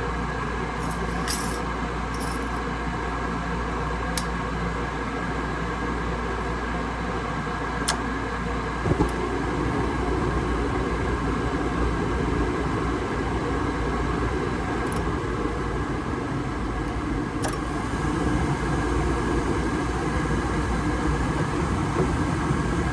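Furnace running with a steady mechanical hum and drone and a few light clicks. It grows a little louder and fuller about nine seconds in.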